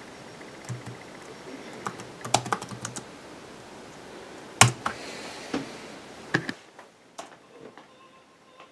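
Typing on a laptop keyboard: scattered keystrokes, with one louder, sharper click about halfway through. The clicks grow fainter over the last couple of seconds.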